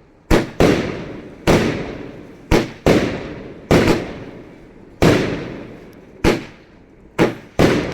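Cosmic Fireworks Thunder King 1.3G firework cake firing: about ten loud, sharp bangs a second or so apart, each one ringing off slowly after it.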